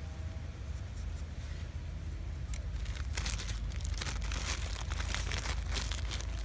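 Clear plastic sheet crinkling and crackling as it is handled and opened out to wrap around a ringed branch, starting about three seconds in, over a steady low rumble.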